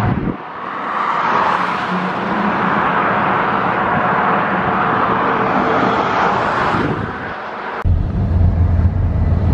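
Road traffic passing on the freeway: tyre and engine noise swells and then fades. About eight seconds in it breaks off sharply into a steady low rumble.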